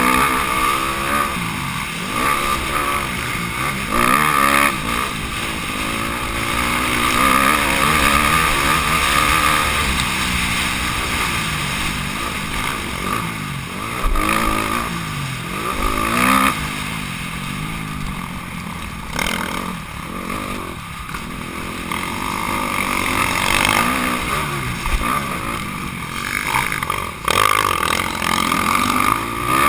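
Honda CRF250R's single-cylinder four-stroke motocross engine, heard from the rider's own bike, revving hard and backing off again and again as it is ridden through the gears around the track, over a steady rushing noise.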